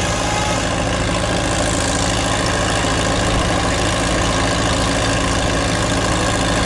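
Old crawler tractor's engine running at a steady speed.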